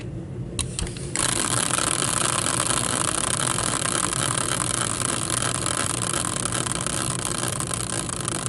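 Prize wheel spinning: a steady, dense run of rapid ticks that starts about a second in.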